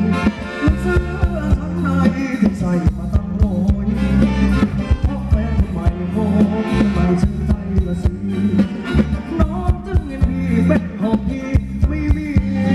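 Thai ramwong dance-band music with a steady, driving beat: heavy bass, drums and a melody line.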